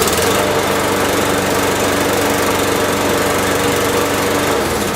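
Briggs & Stratton Quantum engine on an Ariens push mower, just pull-started and running at a steady speed, then shut off near the end, its sound dying away. It runs good, with no misfire or surging.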